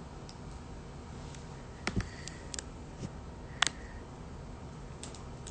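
Quiet room noise with a few scattered short clicks and light knocks, a double knock about two seconds in and a sharp click a little after three and a half seconds.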